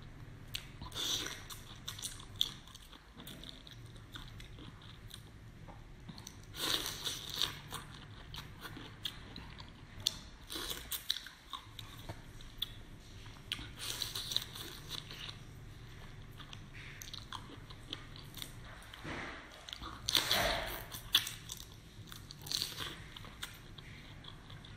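Close-miked eating of marinated prawns: shells being peeled and the prawns chewed, in bursts of wet crackling and clicking several times, over a faint low hum.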